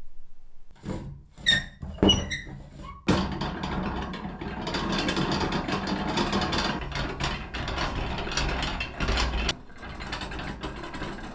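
Restored 1890s hand-cranked potato peeler being turned: a few sharp metallic clinks that ring briefly, then from about three seconds in a continuous clattering rattle of its gearing and spinning perforated bottom disc, quieter after about nine and a half seconds.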